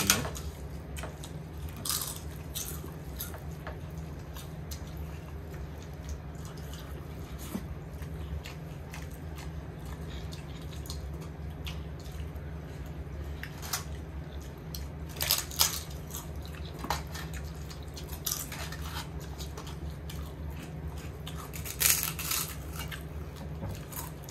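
People eating a meal: chewing and crunching, with scattered sharp clicks and clinks on plates. The loudest come about two seconds in, around the middle and near the end, over a steady low hum.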